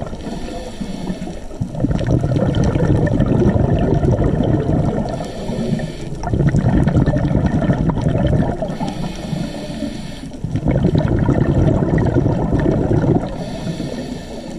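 Scuba diver breathing through a regulator underwater: three long rushes of exhaled bubbles, each followed by a quieter, hissing inhalation through the regulator.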